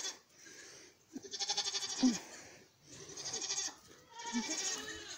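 A miniature goat doe in labour bleating three times, each call about a second long with a quavering, trembling tone.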